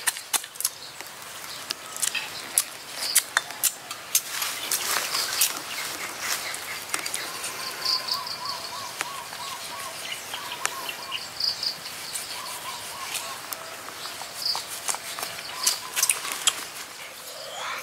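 Sharp knocks of a stone pestle pounding in a stone mortar at first, then sparser clicks and taps of a knife working a fish on a plate. Birds chirp and insects call throughout.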